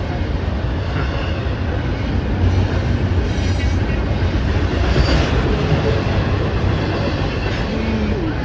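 CSX double-stack intermodal freight train rolling past: a steady, loud rumble and clatter of wheels and container cars on the rails.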